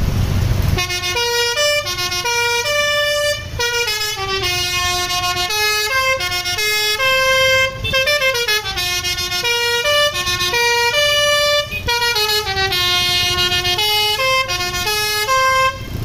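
Telolet basuri musical horn on a Sumber Jaya tour bus playing a tune of held notes stepping up and down, with a few sliding notes about halfway through. It starts about a second in and stops just before the end.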